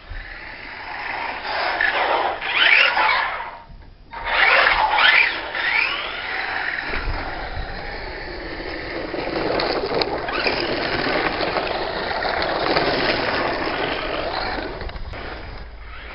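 LRP S10 Blast BX 1/10 electric RC buggy driving in short clips: its motor whine rises and falls as it speeds up and passes, over tyre noise scrabbling on tarmac and gravel. The sound breaks off twice, about four seconds in and near the end.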